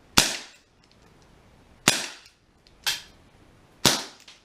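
Ruger Super Hawk CO2 BB revolver fired four times at uneven intervals, each a sharp, loud crack with a short ring of room echo after it; the third shot is a little softer.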